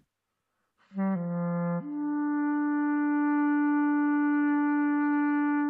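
Music: one sustained brass-like wind tone entering about a second in on a low note, dipping briefly, then stepping up to a higher note held steady.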